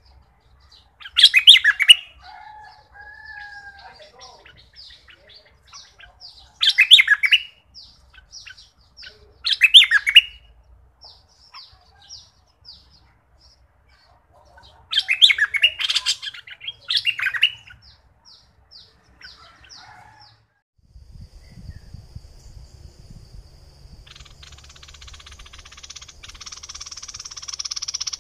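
Stripe-throated bulbuls singing: loud bubbling phrases every few seconds, with runs of short, high, repeated notes between them. In the last several seconds a steady high buzzing hiss swells up.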